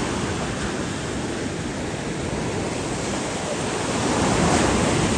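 Sea waves washing in, mixed with wind on the microphone, swelling louder about four seconds in.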